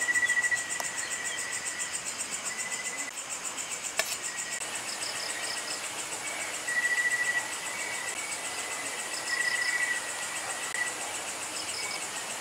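Night chorus of crickets and other insects: a steady shrill trilling over a higher continuous pulsing buzz, with louder trills swelling for about a second at a time. A single sharp click comes about four seconds in.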